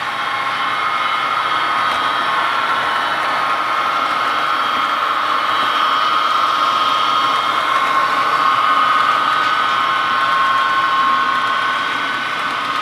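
Model train running on the layout: a steady whine of the model diesel locomotives' motors and gears, with wheel noise on the rails, as the train approaches.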